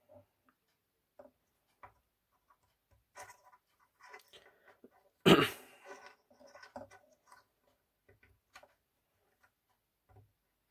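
Small clicks and taps of wire, a connector and a soldering iron being handled during soldering, with one louder, brief rustling scrape about five seconds in.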